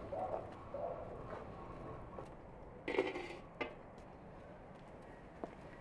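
A metal lid set down on a cooking pot: a short clatter about three seconds in, followed by a lighter clink.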